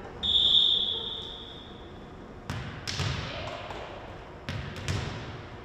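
Referee's whistle, one long blast authorising the serve, then a volleyball bounced on the hardwood gym floor four times, in two quick pairs, by the server before serving.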